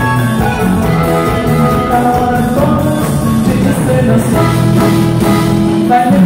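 Live norteño band music played loud on stage: electric bass, guitar and drums together in a full, steady groove.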